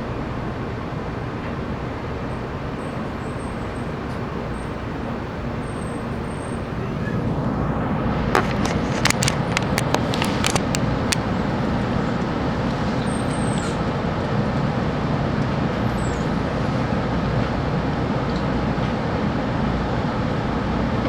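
Running noise of a 700-series Hikari Rail Star Shinkansen heard inside the passenger cabin, a steady rumble and rush. It grows louder about seven seconds in, with a quick run of sharp clicks soon after.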